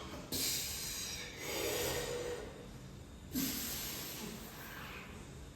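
A person breathing hard: three forceful exhales, a few seconds apart, the last with a short voiced grunt about three seconds in.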